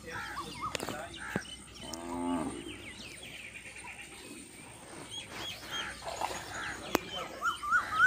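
Farmyard birds and animals calling: scattered short chirps throughout, one deeper drawn-out call about two seconds in, and a fast string of repeated sharp notes starting near the end.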